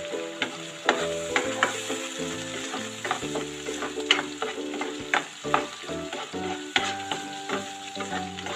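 Wooden spatula stirring and scraping chili-shallot sambal around a nonstick wok, with sharp irregular scrapes and knocks over a steady sizzle as the added water cooks off.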